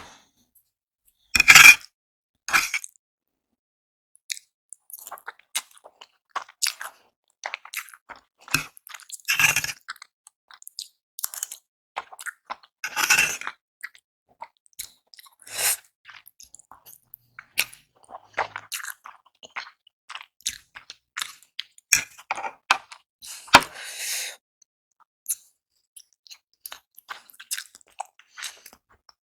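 Close-miked eating sounds of spicy Korean instant noodles: wet chewing, lip smacks and mouth clicks, with a few louder bursts spread through.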